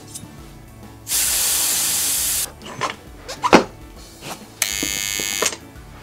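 Air hissing out of the Begode EX20S electric unicycle's tire valve in two bursts, the first about a second and a half long and the second just under a second, as the tire is let down. A few sharp knocks in between, one of them loud.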